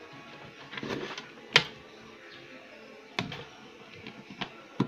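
A few sharp clicks and knocks from hands handling tools or parts, the loudest about a second and a half in and three more in the second half, with a softer rustle before the first.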